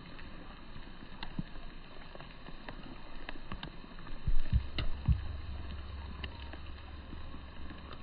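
Light rain outdoors: a faint steady hiss with scattered light ticks. About halfway through, a few low thumps of the hand-held smartphone and lens being handled, after which a low rumble carries on.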